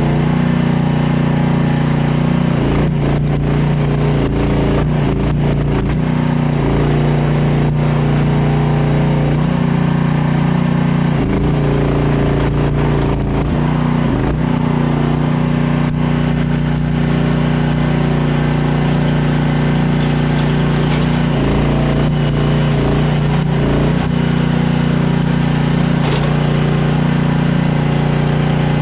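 Mini skid steer's engine running steadily at a constant speed, with light rattles from the machine.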